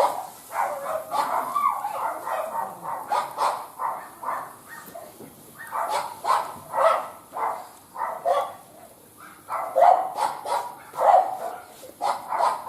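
A dog barking over and over in quick runs of barks, with short pauses between runs. The family reads it as the dog asking for a share of the food.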